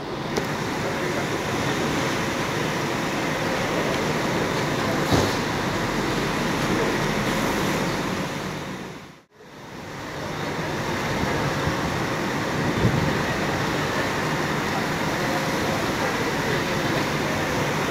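Double-decker long-distance coaches driving past on wet pavement: diesel engines running under a steady wash of traffic and tyre noise. The sound drops out briefly about nine seconds in, then the same kind of noise resumes.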